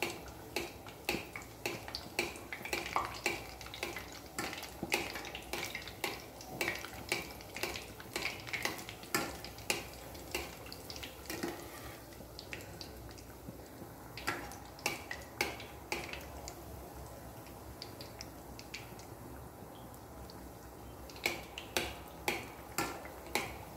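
Metal skimmer tapping and scraping against a stainless steel saucepan as hot oil is splashed over a pastel deep-frying, with a faint sizzle of the oil underneath. The taps come about two a second, thin out in the middle, and pick up again near the end.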